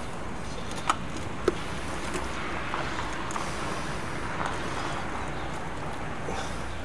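Steady outdoor background noise with two short sharp clicks about one second and a second and a half in, as a raw chicken is worked down onto a beer-can chicken stand in its metal dish.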